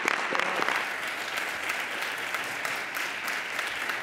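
A roomful of parliamentarians applauding, a steady round of hand-clapping, with a voice or two showing briefly in the first second.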